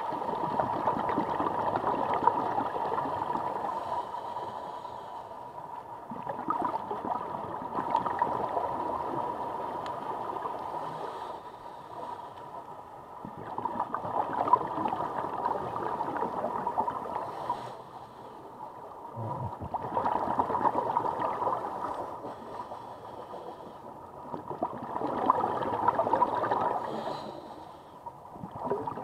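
Scuba diver breathing through a regulator underwater: about five slow breaths, each a rush of exhaled bubbles lasting a few seconds, with short lulls between.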